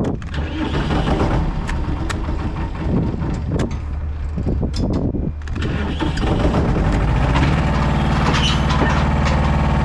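DAF XF 480 truck's diesel engine running steadily. About seven and a half seconds in, its note rises and steadies a little louder, in time with the truck-mounted Kennis loader crane starting to work. A few sharp clicks and knocks are heard in the first half.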